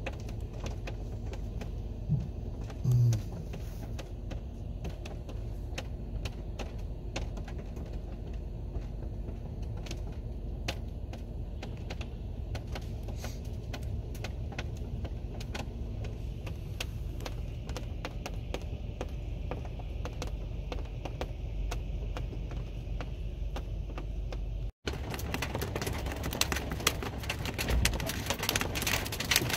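Hailstones striking hard surfaces: a dense, irregular clatter of sharp ticks and clicks over a low steady hum, growing thicker in the last few seconds. A brief, loud low tone sounds about three seconds in.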